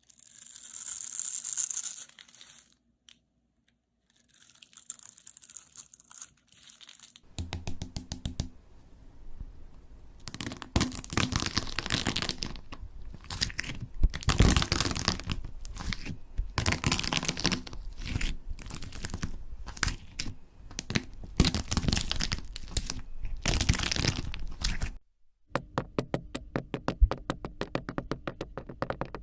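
Close-miked ASMR crackling and tearing of a soft craft material being pressed, pulled and cut, in three separate clips with abrupt cuts about seven seconds in and near the end; the middle clip is a dense run of crackles and clicks.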